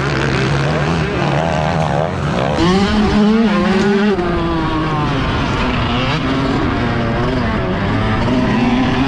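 Motocross dirt bike engine revving hard as it is ridden, its pitch repeatedly climbing and dropping with throttle and gear changes.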